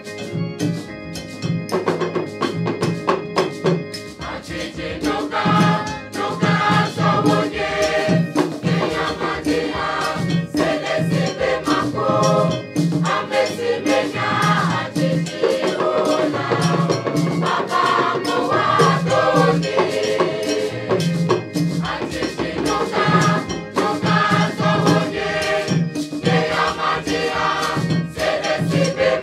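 A mixed school choir singing in harmony over rope-tuned hand drums keeping a steady beat. The voices swell in strongly after about five seconds.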